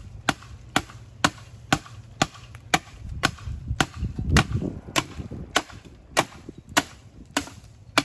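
The sharpened edge of a TAC9ER folding multitool shovel's blade chopping into a tree branch, in a steady rhythm of about two strikes a second. A brief low rumble comes about halfway through.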